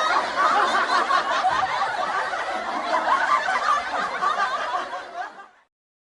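Meme sound-effect clip of people laughing, with many overlapping voices, fading out about five seconds in and then cut to silence.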